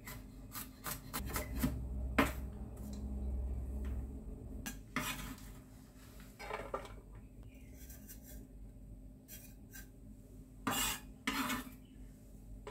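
Chef's knife chopping garlic on a bamboo cutting board: a quick run of knocks in the first couple of seconds, then scattered single strikes of the blade on the board.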